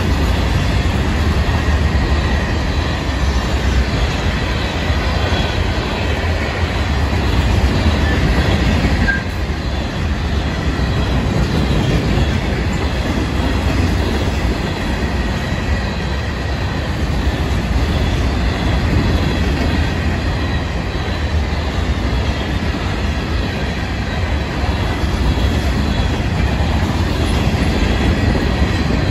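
Freight train cars rolling steadily past at a grade crossing: a continuous heavy rumble and clatter of steel wheels on rail.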